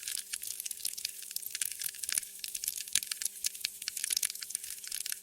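Wood fire in a fireplace crackling, with many small irregular snaps and pops over a steady hiss.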